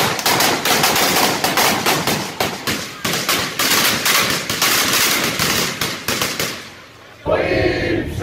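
Fireworks thrown into a street crowd going off in a rapid string of loud bangs, like firecrackers, for about six and a half seconds before dying away. Near the end a crowd of voices sings and shouts.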